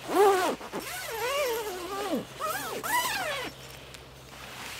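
A woman's voice making three wordless sounds that rise and fall in pitch, over the swish of a nylon down jacket being pulled on.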